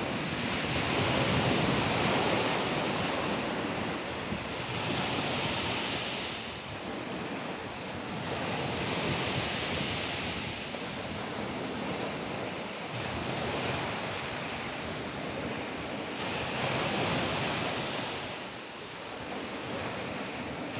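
Black Sea waves breaking and washing up on the shore, the hiss of the surf swelling and fading every few seconds.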